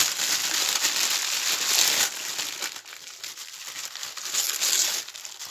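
Clear plastic bag and tissue paper crinkling and rustling as hands unwrap a packaged item. Loudest over the first two seconds, then quieter, then picking up again near the end.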